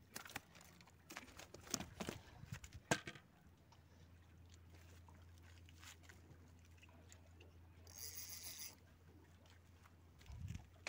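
Scattered light clicks and knocks over the first three seconds as the landed fish and jig are handled, then a faint steady low hum with a brief hiss about eight seconds in and a soft thump near the end.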